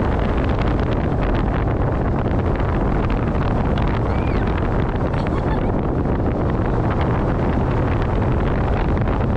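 Wind rushing over the microphone and the steady rumble of a Vekoma Shockwave roller coaster train running at speed along its steel track, with many small rattling clicks.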